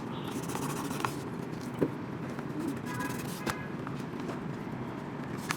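Small hand tool scraping and clicking against an iPhone 7 Plus frame while residual waterproof adhesive is cleared off: a few sharp clicks and short scrapes over a steady background hiss.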